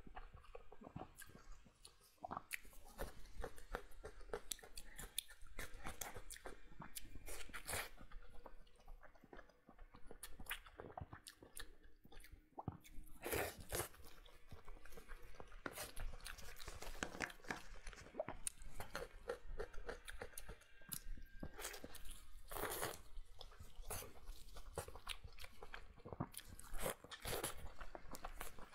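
A person chewing and biting braised pig's trotters close to the microphone: a dense run of sharp, wet clicks and crackles, with a few louder bites about halfway through and again later.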